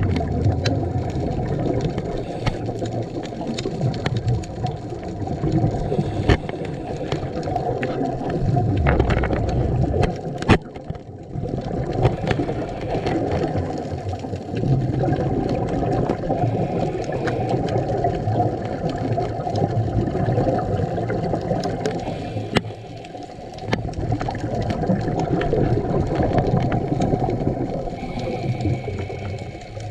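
Scuba diver breathing underwater through a Scubapro regulator: the exhaust bubbling and rumbling near the camera, with short lulls about eleven and twenty-three seconds in.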